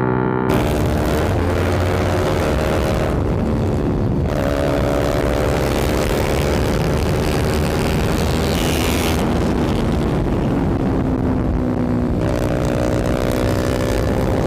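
Sport motorcycles with loud aftermarket exhausts under way, the engine note climbing slowly as they pull and stepping at gear changes, about three to four seconds in and again near the end. Heavy wind rush on the microphone runs under it.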